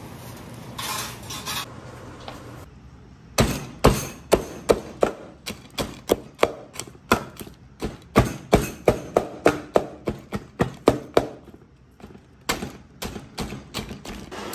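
Rim of a ceramic plate chopping through a whole roast suckling pig: a run of sharp knocks, about two to three a second, starting a few seconds in, with a short break near the end before a few more.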